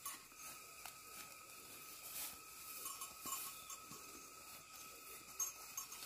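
Steady, high insect drone, with faint scattered clicks and ticks; the sharpest tick comes a little after five seconds in.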